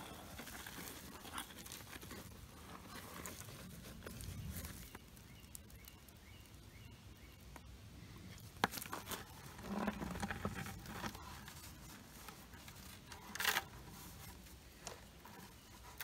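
Faint scraping and scattered clicks of gravel and small stones as a hand-held magnet is worked over the ground, picking up magnetic iron-ore rocks. A few sharp clicks stand out, one a little past halfway and another near the end.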